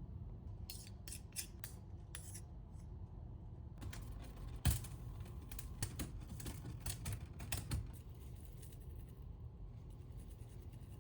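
Faint small handling sounds: a short run of sharp clicks or snips, then a louder knock about halfway, followed by several more clicks over the next few seconds.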